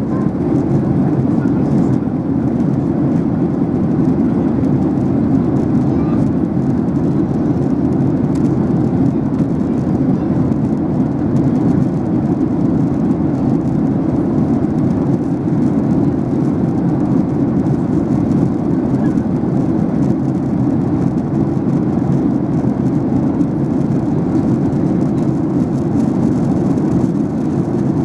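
Steady in-flight cabin noise of a Boeing 737-800 heard from a window seat: the low drone of its CFM56-7B turbofan engines mixed with the rush of air along the fuselage, unchanging throughout.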